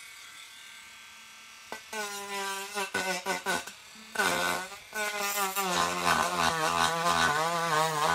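Dremel Stylo+ rotary carving tool running at a low hum, then cutting into a wooden board from about two seconds in. Its whine wavers up and down in pitch as the bit bites, first in short spurts and then almost without a break.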